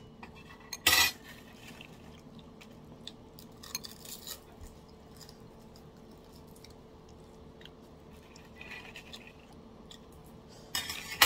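Metal spoon and chopsticks clinking and scraping against a bowl while eating, with a short clatter about a second in and a longer one near the end, and small clicks between. A faint steady hum runs underneath.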